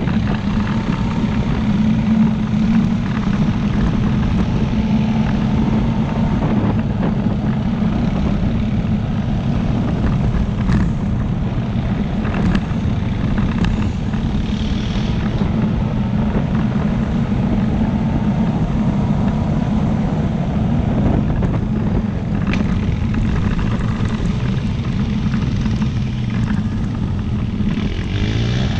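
ATV engine running steadily while riding along a dirt road, a constant low drone with a few faint clicks and knocks.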